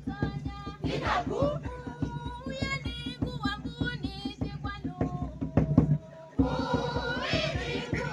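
Kilumi dance music: drums beating a fast, steady rhythm under group singing. The sound drops out for a moment about six seconds in, then comes back with louder, massed voices.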